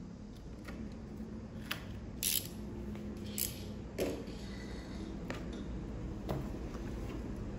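A utility knife scraping and clicking along the edge of a corrugated plastic panel as it trims the excess, in a handful of scattered small strokes and taps about a second apart.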